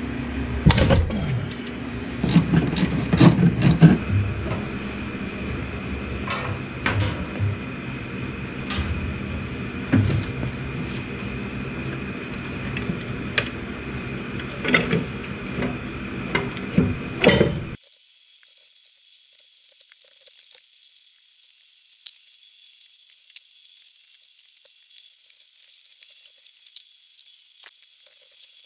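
Hand tools working on a truck engine: metal clinks, knocks and ratchet clicks at irregular intervals over a steady hum, with clusters of louder knocks near the start and again near 15 to 17 seconds in. About 18 seconds in the sound cuts off suddenly to a faint hiss with scattered small ticks.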